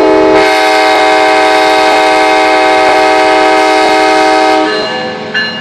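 Locomotive air horn sounding a long, loud blast of several steady notes that stops near the end, followed by wheels clacking over a rail joint.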